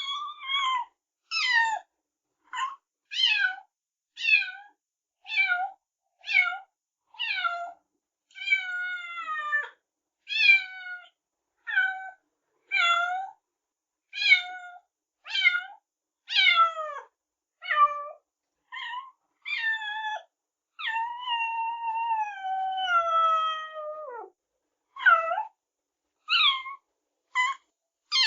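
Kittens meowing over and over, short high-pitched meows about one a second, each falling in pitch, with one long drawn-out meow about three quarters of the way through.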